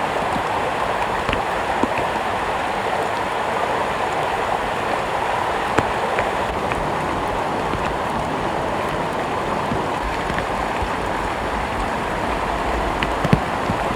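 Floodwater rushing steadily, with a couple of brief clicks.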